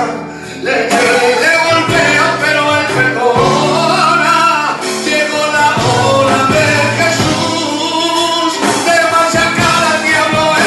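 A man singing a Spanish-language praise song through a microphone and PA, over instrumental backing music, after a brief lull at the very start.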